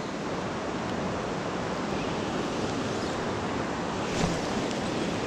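River current rushing steadily over a rocky riffle, an even water noise.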